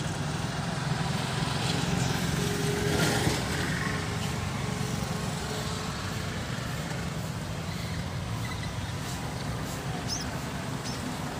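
Steady road traffic, motorbikes and cars passing on a street, heard as a constant low rumble.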